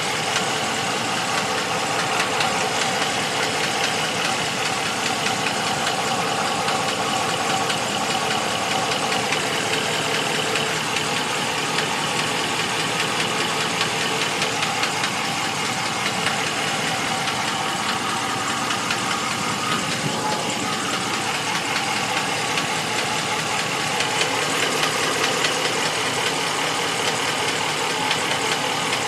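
2014 Ram 1500 engine idling steadily with a fast, regular knock from the valve train.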